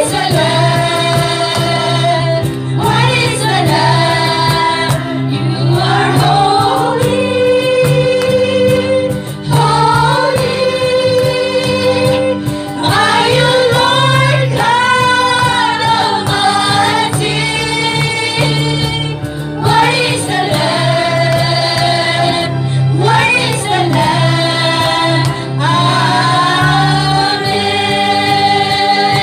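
Live worship music: a woman sings through a microphone in long held and gliding phrases, with other voices joining, over steady sustained accompaniment chords.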